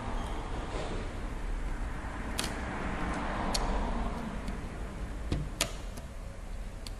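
Light handling noise with a few sharp little clicks, from ribbon cables being fitted back into their connectors on a PS3 disc drive.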